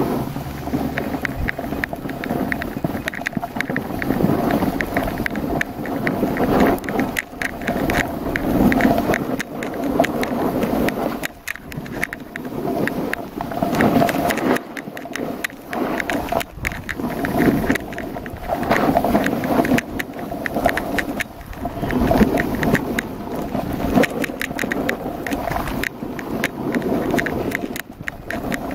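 Skis scraping and carving over packed snow on a downhill run, the sound swelling with each turn every few seconds.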